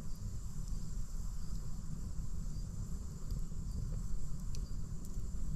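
Outdoor camp ambience: insects, likely crickets, chirring steadily at a high pitch over a steady low rumble, with a few faint clicks.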